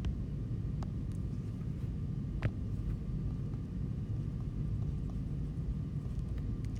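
Steady low background rumble, with a few faint, separate clicks of a stylus tapping an iPad screen while handwriting.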